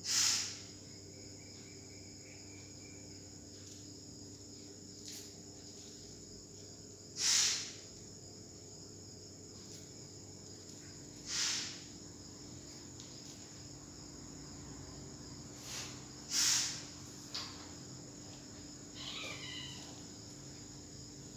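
Crickets chirping steadily in a high tone, with a few brief louder rushing swells spaced several seconds apart.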